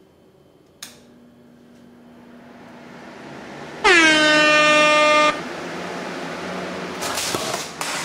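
A switch clicks and a box fan starts up, its rushing air noise growing steadily as the blades come up to speed. About four seconds in, a loud air horn blast cuts in, its pitch dropping briefly at the start and then holding for about a second and a half. The fan noise carries on underneath after the horn stops.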